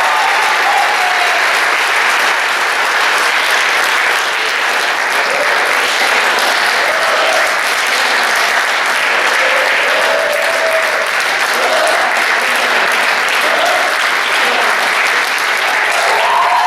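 Theatre audience applauding steadily, with a few short shouted cheers rising over the clapping.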